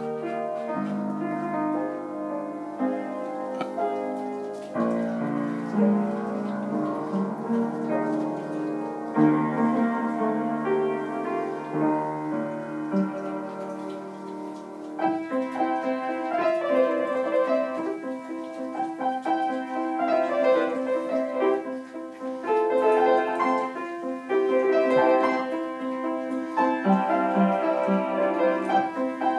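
Piano being played: a flowing run of notes and chords. About halfway through, the playing moves up into a higher, busier passage.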